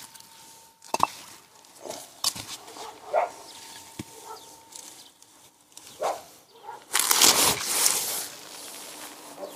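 White non-woven frost cloth rustling and flapping as it is pulled off a shrub, with a few knocks of bricks being lifted and set down on concrete. The loudest rustle comes about seven seconds in as the cover comes free.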